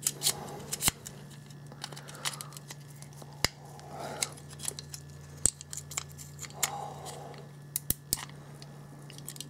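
Screwdriver tips and a thin metal pry tool scraping and clicking against the plastic housing of a Wi-Fi range extender as it is levered at. The housing is stuck and will not come apart. The sound is a string of irregular sharp clicks with softer scrapes between them.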